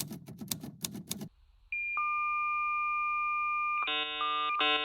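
Rapid clicking for about a second, then after a short gap a steady high electronic tone, joined by two lower steady tones. Near the end come two short bursts of a many-note electronic chime or ring.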